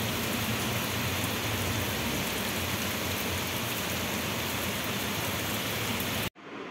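Heavy rain pouring onto a flat rooftop and splashing into standing water, a steady dense hiss that cuts off abruptly near the end.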